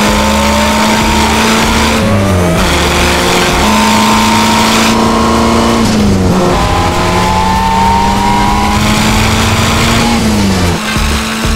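1933 Bugatti Type 55's supercharged straight-eight engine pulling hard, its note climbing steadily and dropping sharply at three gear changes, about two, six and ten seconds in.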